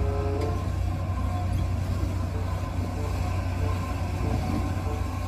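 Isuzu dump truck's diesel engine running steadily as the truck drives, a low, even rumble.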